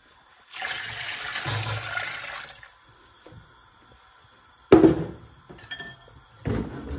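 Water poured from a jug into a large aluminium pot of lamb trotters already half full of water: a steady splashing pour of about two seconds. A few seconds later comes one sharp, loud knock, and a softer one near the end.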